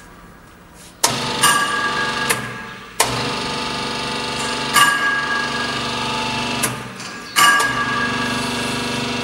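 Repeated sharp metal clanks that ring out, with a steady machine hum from the cocoa butter press starting about three seconds in and running on under them.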